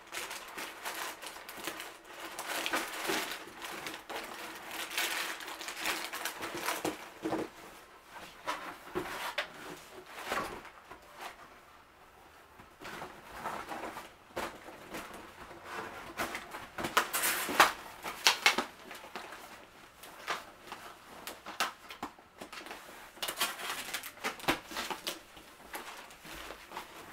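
Cardboard sneaker box being opened and handled: irregular rustling, crinkling and scraping of cardboard and paper with small knocks of the lid, loudest in a cluster about two-thirds of the way through.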